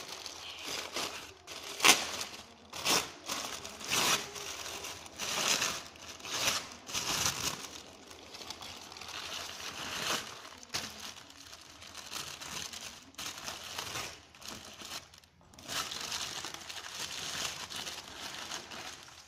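Thin patterned wrapping paper being pulled off an orchid and crumpled by hand: an irregular run of rustling and crinkling, with a sharp loud crackle about two seconds in.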